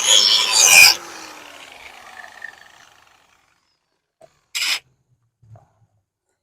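Angle grinder grinding down welds on sheet steel, then switched off about a second in, its disc winding down with a falling whine that fades out. A brief scrape or hiss follows a few seconds later.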